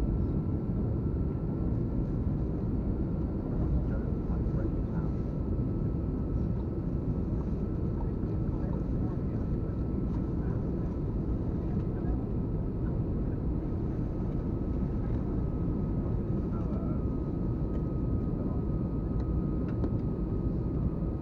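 Steady cabin noise inside an Airbus A321 airliner descending to land: a low, even rush of airflow and engine noise with a faint steady whine above it.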